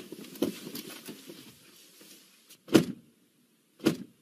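People getting out of a car: rustling and shuffling at first, then two car doors shut with a thud, about a second apart.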